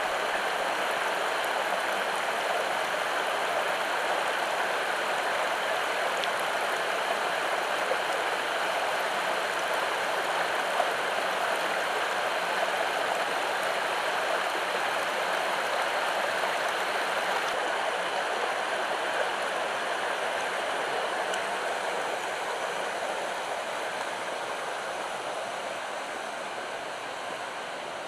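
Terrace Falls cascading into its pool: a steady rush of falling water, easing slightly over the last few seconds.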